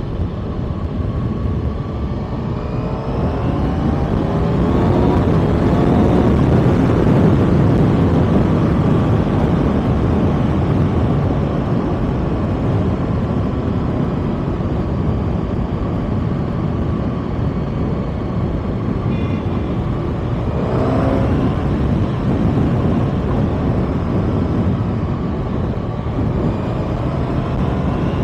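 Kawasaki ZX-6R's inline-four engine running at speed under heavy wind noise on the microphone. The engine pitch rises about three seconds in and again about twenty seconds in.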